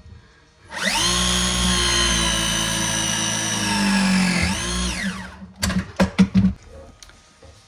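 Cordless battery press tool crimping a press fitting onto copper pipe: its motor whirs up, runs at a steady pitch for about four seconds, dips briefly and winds down, followed by a few sharp clicks.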